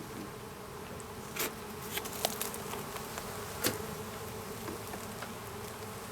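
A cloud of honeybees buzzing in a steady hum around an open hive, the colony getting a little agitated. A few sharp clicks sound through it.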